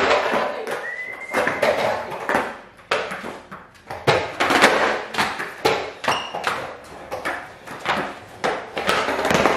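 Skateboards on a bare concrete floor during flatground tricks: a run of sharp pops and smacks at irregular intervals as tails snap and boards land, with rolling wheels between them.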